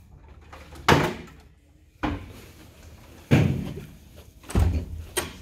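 Heavy doors banging shut: about five loud thuds, a second or so apart.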